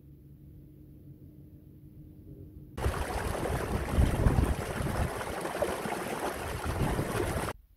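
Shallow stream water running through grass, a steady rush that starts suddenly about three seconds in and cuts off sharply near the end.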